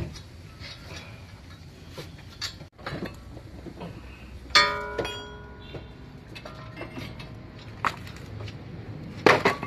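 Metal brake parts and tools clinking and knocking together while a brake caliper is cleaned. Scattered light taps, one sharp ringing clang about halfway through, and a cluster of louder knocks near the end.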